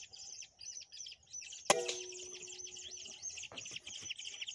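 A busy chorus of small birds chirping rapidly and continuously. About two seconds in, a single sharp crack with a short ringing tone after it, the PCP air rifle firing.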